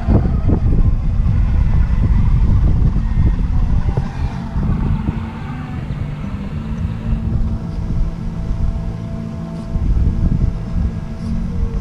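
Heavy low rumble of wind buffeting the microphone, with the faint whine of an RC rock crawler's Hobbywing AXE brushless motor and gears as the truck creeps up steep rock.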